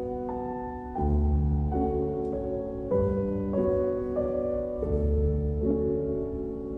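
Slow, gentle instrumental background music, its chords changing about once a second and a deep bass note coming in about every two seconds.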